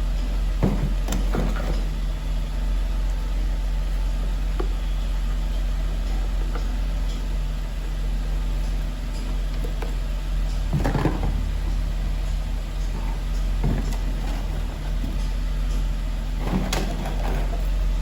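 Car engine idling with a steady low hum, with a few short knocks and rustles of plastic parts being handled, the loudest about eleven seconds in.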